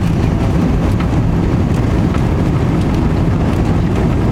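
Jet airliner's engines and airframe giving a loud, steady rumble during the takeoff phase.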